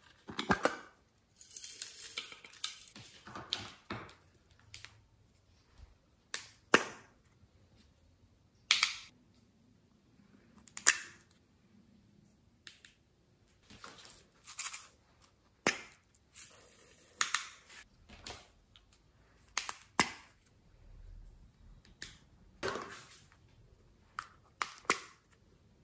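Small plastic glitter cases clicked open and snapped shut, a dozen or so sharp plastic snaps, with short hissing stretches of glitter being shaken out between them.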